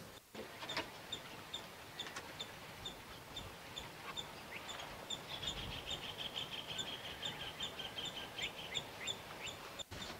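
Faint birdsong: a short high chirp repeated evenly a little over twice a second, with a few other brief bird calls.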